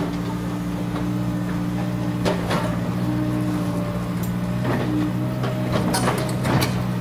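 Komatsu PC200 hydraulic excavators' diesel engines running steadily under working load, with several sharp clanks as a bucket digs and swings earth, the loudest a little before the end.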